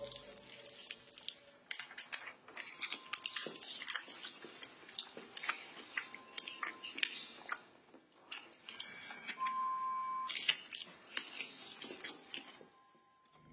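Irregular crunching and crackling clicks, with a short steady beep about ten seconds in.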